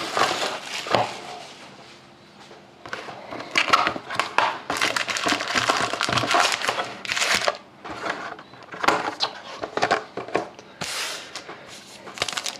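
Trading card pack wrapper crinkling and rustling in the hands as the pack is torn open. The crinkling comes in irregular bursts, with a short lull about two seconds in.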